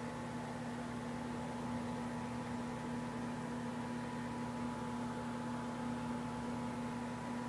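A steady hum with a constant hiss underneath.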